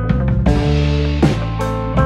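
Background music: sustained chords over a low bass, with drum hits about every three-quarters of a second.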